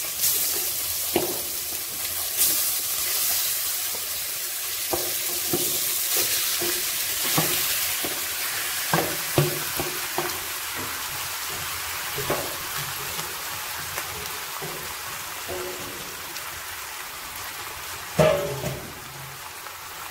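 Marinated chicken sizzling as it is scraped into hot coconut oil in a pan, with clicks and scrapes of a spatula against the steel bowl and pan. The sizzle slowly fades, and a sharper knock comes near the end.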